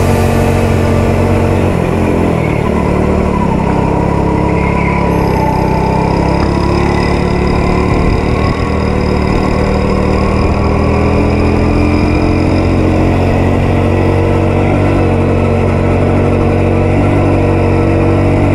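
Go-kart engine running at speed on the track, its pitch rising and falling with the throttle.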